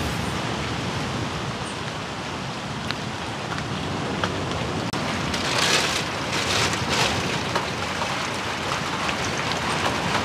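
Rain falling steadily, briefly louder a little past the middle.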